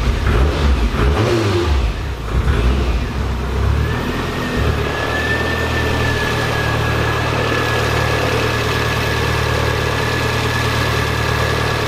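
Mazda MX-5 four-cylinder engine just after starting, running unevenly with level swings for the first few seconds. It then settles into a steady idle about four and a half seconds in, with a steady high whine over it.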